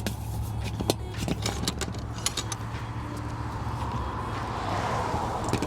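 Rain falling with scattered sharp clicks, and a car passing on the wet road, its tyre hiss swelling and fading about four to five seconds in.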